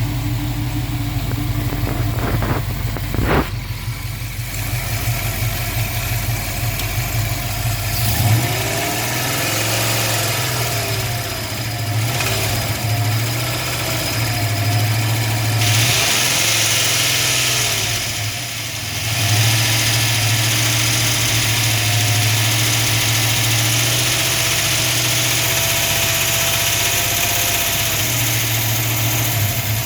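Dodge Dart engine running with a knock that the owner is asking about. Its speed rises and falls twice, around a third of the way in and again past the middle, with a couple of sharp clicks early on.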